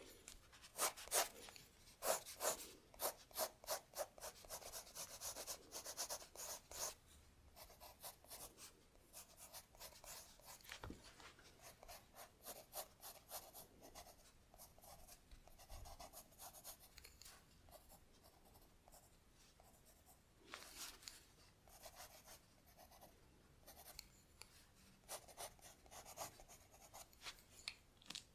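Stylus drawing on a tablet screen: short scratchy strokes, a quick run of them in the first seven seconds, then sparser strokes with small clusters later on.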